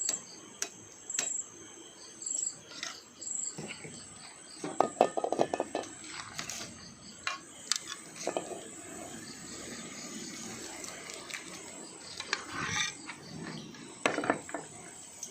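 Metal cooking pots, plates and spoons clinking and knocking as rice gruel is served, with a cluster of clattering about five seconds in. Crickets chirp in the background.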